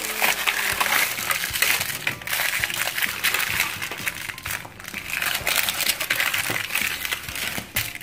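Crinkly plastic wrapper being peeled and torn open by hand: a dense crackling rustle with a couple of brief lulls.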